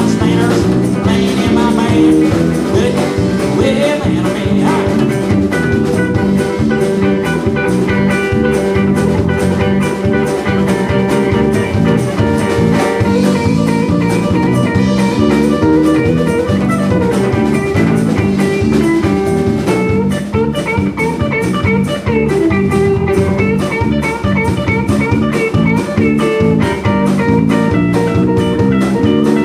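Live band playing an instrumental break of an outlaw-country song: electric guitar lead over bass guitar and drum kit, with a steady beat.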